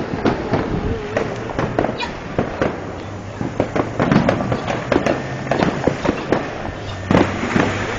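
Fireworks and firecrackers going off all around in a dense, irregular barrage of bangs and pops, some loud and sharp, others fainter.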